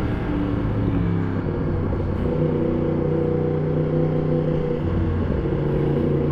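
2020 Yamaha MT-10 SP's crossplane inline-four engine, fitted with an Akrapovic exhaust, running steadily as the bike is ridden; its pitch shifts about a second in, then holds.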